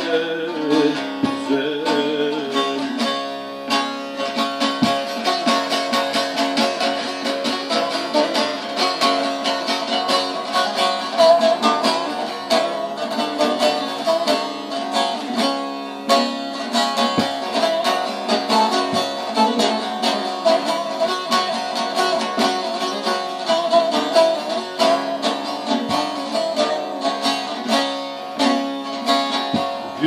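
Solo bağlama (long-necked Turkish saz) played instrumentally with fast, dense plectrum strumming over a steady melody, as an interlude between verses of a folk song.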